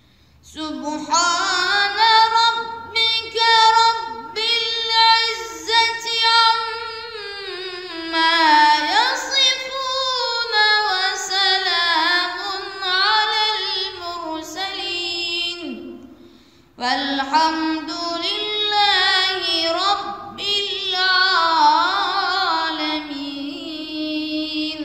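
A boy reciting the Qur'an in melodic tilawah style, one voice holding long notes that slide and waver in pitch. It comes in two long phrases with a breath pause about sixteen seconds in.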